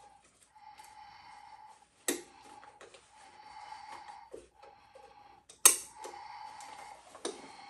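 Slow, heavy breathing through a gas mask, each breath drawn and pushed through the mask with a wheezy whistling tone. Two sharp clicks, about two and five and a half seconds in, the second the loudest sound, and a smaller one near the end, come from handling the kit pouch.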